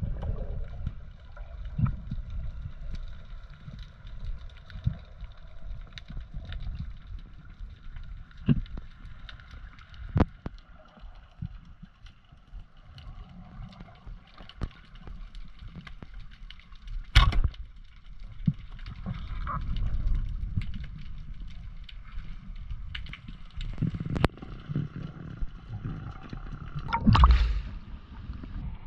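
Muffled underwater sound from a camera under the sea: a low rush of water with scattered clicks and gurgles, a sharp knock about seventeen seconds in, and a louder rush of water near the end as the camera comes up through the surface.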